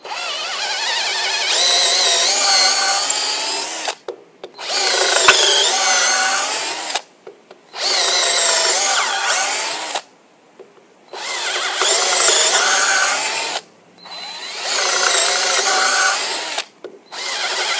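Dextra 15016 12-volt lithium-ion cordless drill in its high-speed gear boring holes through a white pine 2x4: six runs of motor whine, each two to three seconds long, with short pauses between, the last starting near the end. The pitch wavers as the bit cuts, and it goes through easily.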